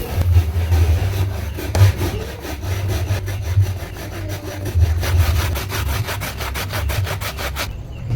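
Repeated rhythmic scraping strokes, getting faster in the second half and stopping abruptly just before the end, over a steady low rumble.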